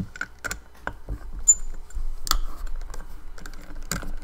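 Irregular light clicks and taps of small metal tools and parts: a precision Torx screwdriver kit being handled, bits swapped and set against the hard drive's screws.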